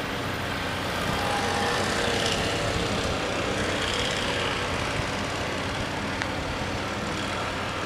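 A motor vehicle engine running steadily, a little louder between about one and five seconds in.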